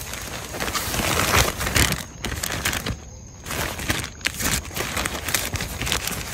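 Paper fruit-protection bags on gourd vines crinkling and rustling as they are handled, a dense run of crackles with two short lulls.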